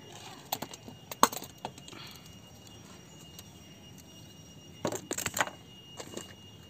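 Light clicks and clinks of small hard objects being handled: a sharp one about a second in and a quick cluster of clicks around five seconds in.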